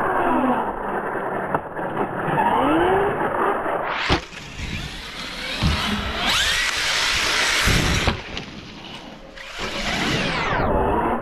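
Electric RC monster truck driving on dirt: its motor whines up and down in pitch as the throttle is worked, over the rush of tyres on loose ground. There is a sharp knock just after four seconds, then stretches of louder driving noise.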